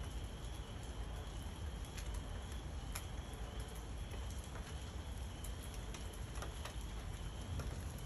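Steady rain during a thunderstorm, with scattered sharp drips and patters over a steady low rumble.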